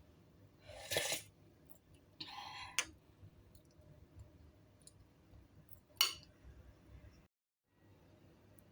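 Quiet tableware sounds of a spoon and bowl: a couple of short, soft scraping or sipping sounds, small clicks, and one sharp clink about six seconds in.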